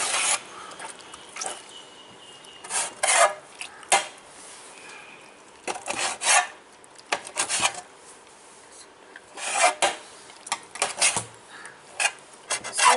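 Kitchen knife slicing boiled goat intestine on a metal plate: irregular scrapes and taps of the steel blade against the plate, coming in small clusters every second or two.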